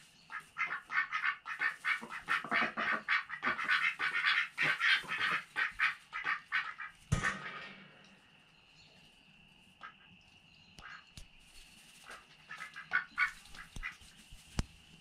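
A group of domestic ducks quacking, many short rapid calls overlapping for the first several seconds, then a sharp knock about seven seconds in. After it the calls thin out, with a brief burst of quacks near the end, over a faint steady high whine.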